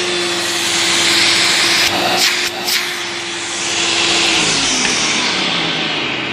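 1992 Hoover Turbopower 2 upright vacuum cleaner running, a steady motor hum under a loud rush of air, with a few short clicks about two seconds in. About four seconds in the motor's pitch starts falling steadily as it slows down.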